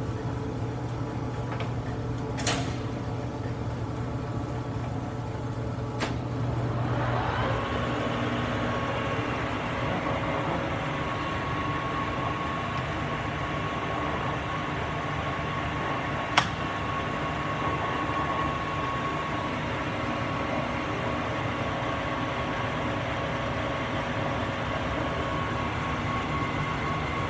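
Turnmaster engine lathe running under power with a steady mechanical hum and a few sharp clicks. About seven seconds in a rising whine comes in and settles into a steady higher tone that holds to the end.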